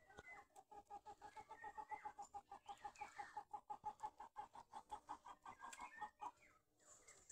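Faint chickens clucking: a fast run of short, evenly spaced notes lasting about six seconds and stopping near the end, with other higher calls over it.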